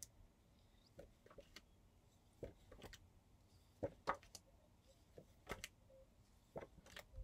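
Faint paper rustles and taps as printed letter flashcards are pulled off the front of a stack one after another, a pair of soft clicks about every second and a half.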